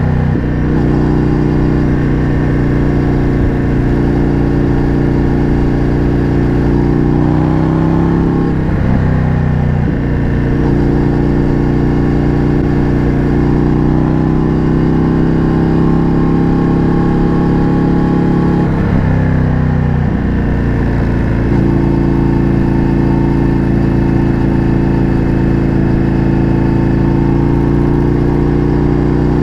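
Indian FTR 1200's V-twin engine running through an Akrapovič exhaust while the bike is ridden at a steady pace, the engine note holding steady with a slight slow rise. Twice, about a third and two-thirds of the way through, the note dips briefly and then picks back up.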